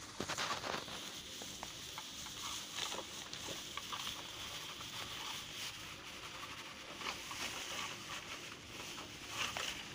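Dry straw bedding rustling and crackling, with many small irregular clicks and a few louder crackles near the start and the end.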